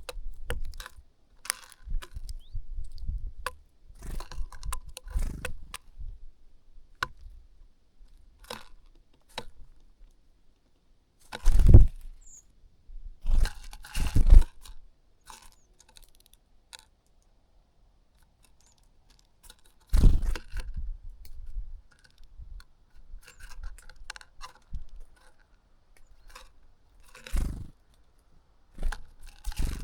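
Small birds pecking and scratching at food close to the microphone: an irregular run of crunches, clicks and scrapes. A few louder, deeper thumps come through, about twelve seconds in, twice around fourteen seconds, at twenty seconds and near the end.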